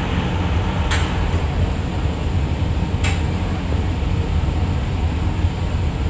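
Steady low rumble of a vehicle running, with two short clicks about one and three seconds in.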